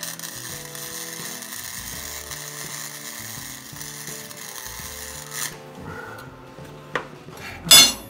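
MIG welder arc laying a bead on steel: a steady hiss for about five and a half seconds, then it stops. Near the end comes a short, loud knock.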